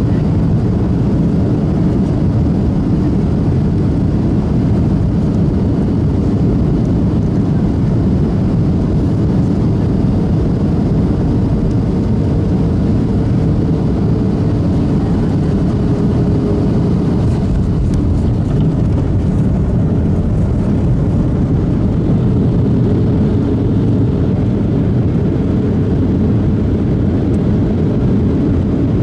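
Boeing 737-800 cabin noise from the CFM56-7B engines and airflow: a loud, steady rumble. Around the middle a faint tone slides slightly downward.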